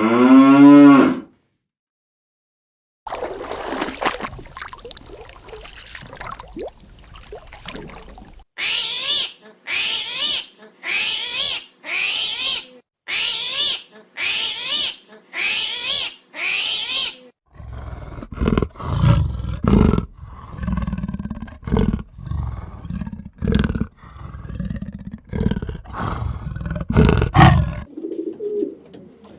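A run of different animal calls one after another: a short pitched call, a pause, then nine evenly spaced calls about a second apart, followed by a quicker, irregular series of calls.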